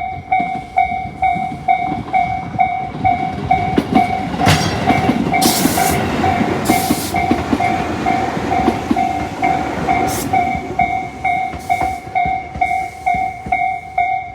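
Japanese railway level-crossing warning bell ringing in a steady electronic ding-ding at about two strokes a second, its bells sounding in step with no offset between them. A Tobu Isesaki Line train rumbles through the crossing from about four seconds in, with sharp hissing bursts as it passes, then fades, while the bell keeps ringing.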